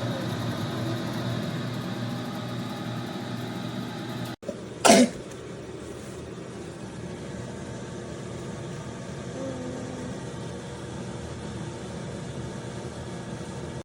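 COSORI air fryer toaster oven's convection fan running with a steady, loud hum, the noise the owner calls so loud and rattling or rumbling. The hum cuts out for an instant a little over four seconds in, and a single short loud burst follows about five seconds in.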